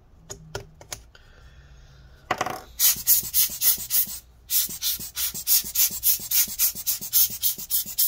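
Hand-squeezed rubber air-blower bulb puffing air into an open laptop to blow out spilled water, in quick repeated puffs of about four or five a second, starting a little over two seconds in, with a short break partway through.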